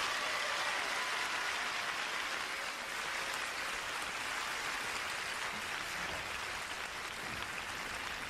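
Arena audience applauding steadily at the end of a pairs figure skating program.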